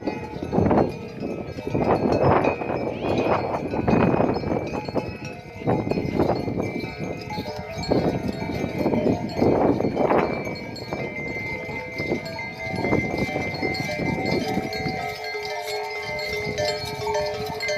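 Bells hung on a herd of cows ringing and clanking as the herd walks in, with loud animal calls every second or two over most of the stretch.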